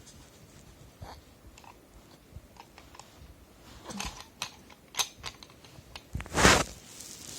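Scattered light clicks and taps, then a short, loud rushing burst of noise about six seconds in.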